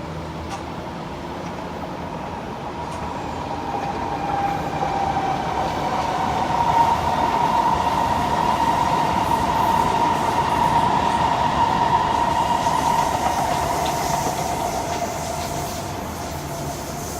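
An SMRT North South Line MRT train passing. It builds up over a few seconds, is loudest in the middle with a steady high whine, then fades away.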